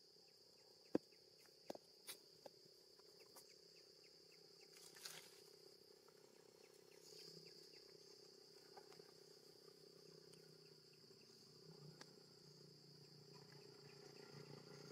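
Faint steady high-pitched drone of insects, with a few sharp clicks in the first few seconds, the loudest about a second in, and a low hum that grows toward the end.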